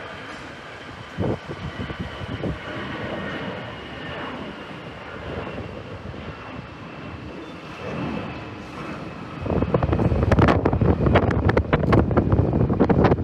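Jet aircraft engine noise: a steady high whine over a low rumble, swelling about nine and a half seconds in to a loud, ragged roar broken by gusts buffeting the microphone.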